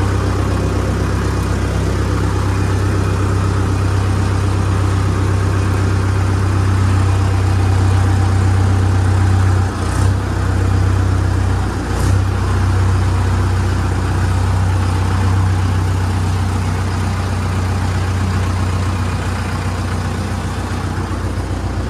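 Tractor diesel engine running steadily, with two short knocks about ten and twelve seconds in.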